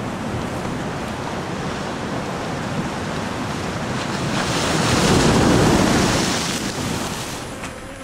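Ocean surf washing over a rocky shoreline, a steady rush that swells to its loudest a little past the middle and then ebbs away near the end.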